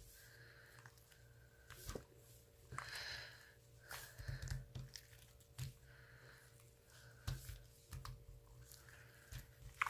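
Slime being squished and pressed by hand, making irregular sticky clicks and soft crackles every second or so over a faint steady hum.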